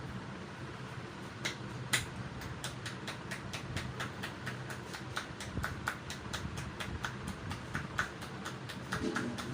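Rhythmic percussive massage: the masseur's hands tap and slap quickly, making sharp snapping clicks about four a second. They start about a second and a half in, over a steady low hum.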